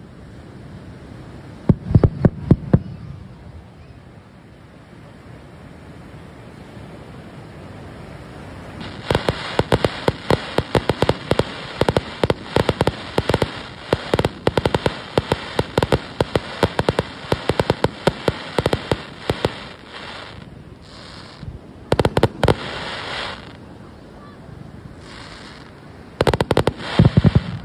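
Fireworks display: a quick run of sharp bangs about two seconds in, then a long rapid-fire barrage of bangs and crackling over a steady hiss, and two more short volleys of bangs near the end.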